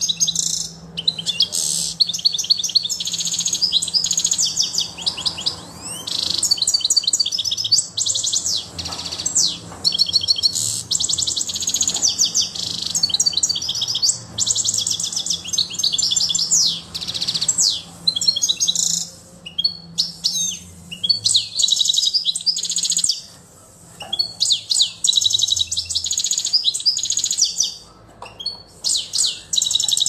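European goldfinch singing its full song: long phrases of fast, high twittering and trills, broken by a few short pauses. A faint steady low hum runs underneath.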